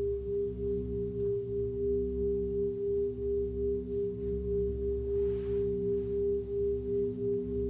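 Sustained drone of steady pure tones played back through a looper, wavering slowly in loudness, over a low hum. A short soft hiss about five seconds in.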